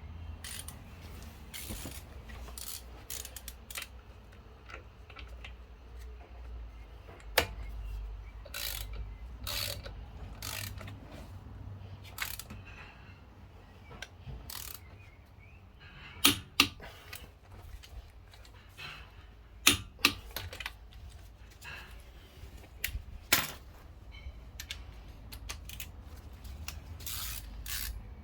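Irregular clicking of hand tools being worked, like a ratchet, broken by a few sharp knocks, two of them in quick pairs, as the brake and wheel are put back together.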